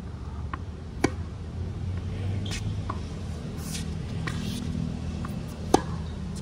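Tennis ball struck by a racket: a sharp pop near the end, the loudest sound, and a fainter hit about a second in. Between them come lighter ticks and short scuffs of shoes on the hard court, over a steady low city rumble.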